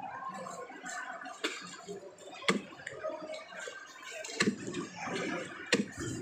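Meat cleaver chopping through a threadfin fish head onto a chopping block: about five sharp chops at irregular spacing.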